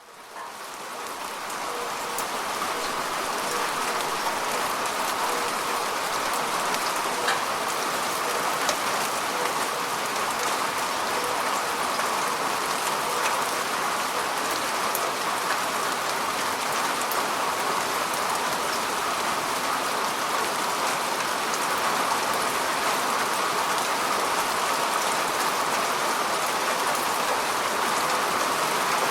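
Steady rainfall, an even hiss of rain with scattered individual drops ticking on a surface. It fades in over the first couple of seconds, then holds steady.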